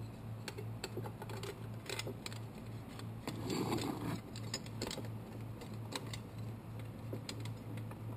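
Scattered light metallic clicks and small scrapes as the interior retaining screw goes back into an antique Yale Mono Lock, with a soft rustle about halfway through. A steady low hum pulses evenly underneath.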